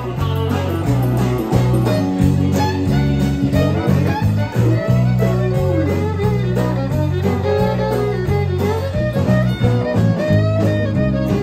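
Live country band playing an instrumental break: fiddle melody with acoustic and electric guitars over a stepping bass line.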